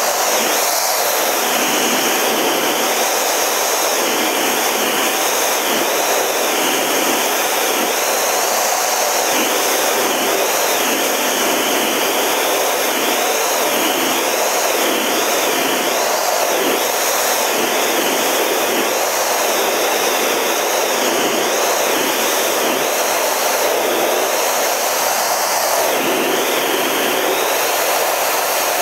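Steady rush of jet engine and airflow heard inside the cockpit of a Canadair CT-114 Tutor in formation flight, with a faint steady whine running through it.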